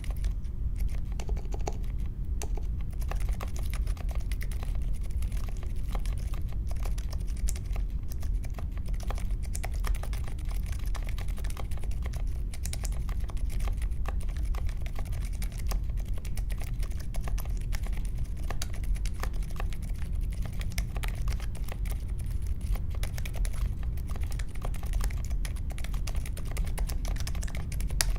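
Continuous fast typing on a mechanical keyboard with unlubed Akko CS Vintage White linear switches, in an aluminium case with foam and tape mods and clipped stabilisers. The keystrokes come as a dense, unbroken stream of clacks.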